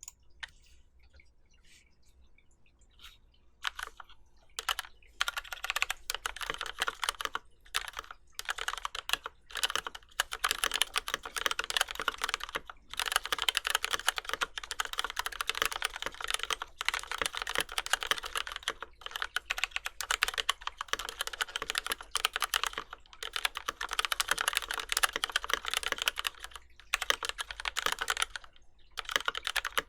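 Typing on a mechanical keyboard with lubed retooled Cherry MX Black linear switches, an aluminum plate and GMK keycaps: dense runs of keystrokes broken by short pauses. The typing starts about four seconds in, after near quiet.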